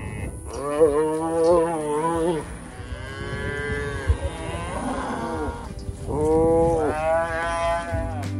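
Roped calves bawling: three long calls, the first wavering in pitch, the second fainter, the third the loudest.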